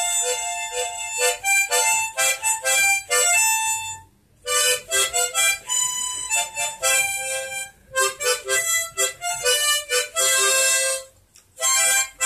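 Harmonica playing a tune of quick short notes and a few held chords, with a brief break about four seconds in.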